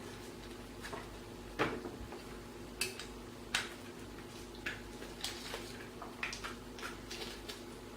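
Irregular metallic clicks and clinks as a hard drive is handled and fitted into a PowerMac G4's metal hard-drive cage, over a faint steady hum.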